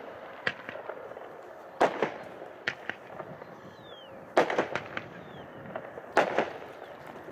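A 12-shot 350-gram consumer fireworks cake (strobe-tinted brocade shells) firing: loud aerial booms a second or two apart, the bigger ones followed by a quick scatter of small pops.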